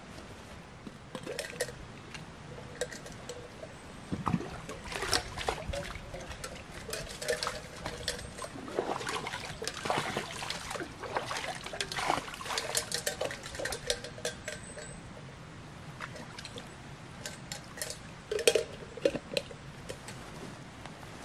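A small cup dipped into a shallow stream and water poured back out of it, splashing and trickling, with clinks from the cup. Light footsteps on dry leaves at first.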